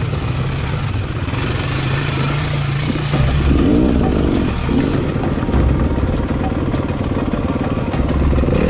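Dirt bike engine running at low trail speed, its pitch rising and falling with the throttle around the middle, with light clicks and clatter in the later part.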